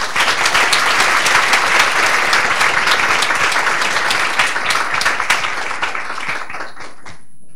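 Audience applauding: dense clapping that thins to scattered claps and dies away near the end.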